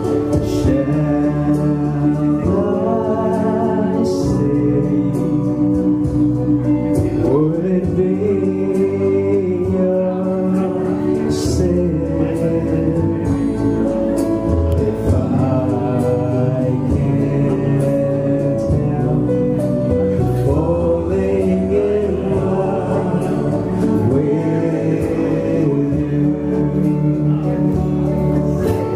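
Music: a song with singing over instrumental backing.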